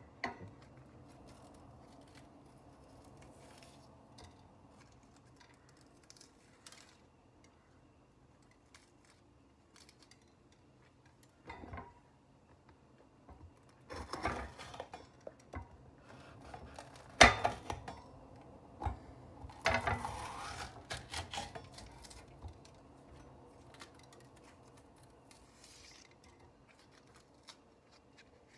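A knife cutting into crisp pointed sweet peppers on a wooden board. Faint handling sounds come first; then, in the middle, a stretch of crunching and crackling as the blade goes through the pepper flesh, with one sharp click that is the loudest sound.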